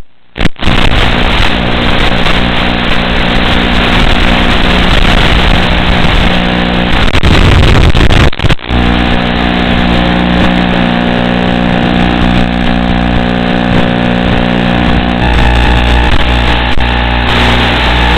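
Audio from an FPV quadcopter's analog video link: a loud, steady buzzing hiss with low hum tones in it. It cuts out briefly right at the start and again about eight seconds in.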